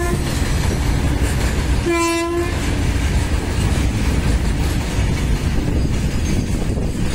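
Loaded oil tank wagons of a freight train rolling past close by, a steady heavy rumble of wheels on rail. A train horn sounds one short blast about two seconds in.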